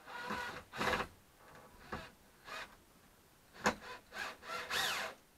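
Scattered short rubbing, scraping and knocking of wood and a cordless drill-driver being handled as a wooden shelf strap is fixed up. A brief whirr rises and falls near the end.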